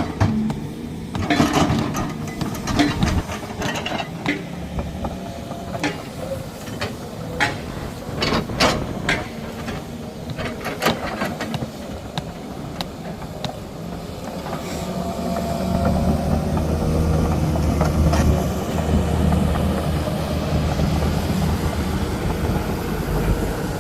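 A run of sharp knocks and clanks of work at a construction site. About halfway through, a heavy machine's diesel engine comes up and runs steadily louder.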